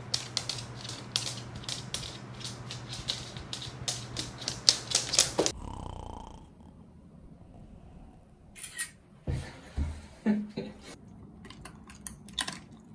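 A standard poodle's claws clicking irregularly on a wooden floor over a steady low hum. About five and a half seconds in, the sound drops off to a quieter stretch with a few scattered clicks and low knocks.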